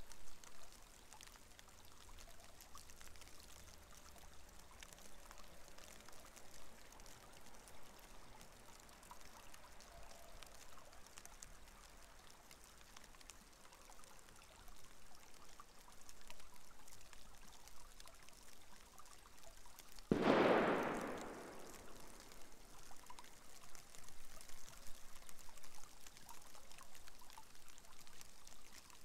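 Shallow water trickling and running down a concrete drainage channel, steady and faint. About twenty seconds in, a sudden louder rush of noise starts sharply and fades away over a second or two.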